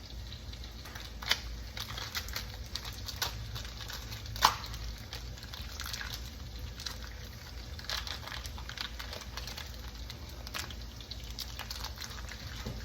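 Kitchen cooking sounds around a pan of simmering cream sauce: scattered small crackles and clicks over a low hum, with two sharper clicks, about one second and four and a half seconds in.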